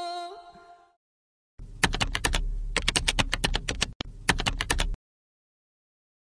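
Typing sound effect: a rapid run of key clicks lasting about three seconds, with a brief break near the middle, that stops abruptly. Before it, the tail of a held musical chord fades out.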